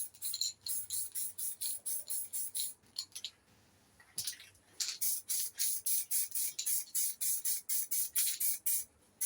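Aerosol can of etch primer spraying a light coat in rapid short hisses, about four a second, stopping briefly a little over three seconds in, then resuming.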